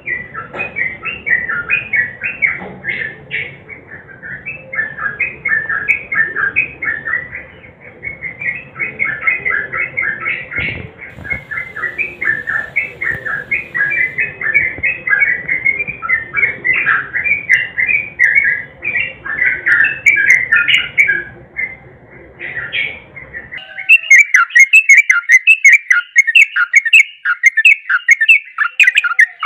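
Yellow-vented bulbul singing a rapid, continuous run of bubbling, chattering notes. About 24 seconds in, the background hum drops away and a louder, crisper stretch of the same song takes over.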